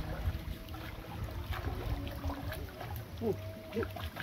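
Two people wading through shallow river water, their steps splashing and sloshing one after another.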